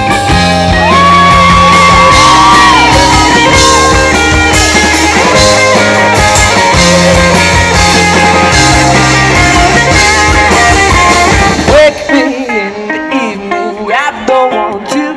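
Live rock band playing an instrumental passage: drums, bass, guitar and a Nord Electro stage keyboard, with a held lead line over the top. About twelve seconds in, the full band cuts out suddenly, leaving a quieter, sparser part.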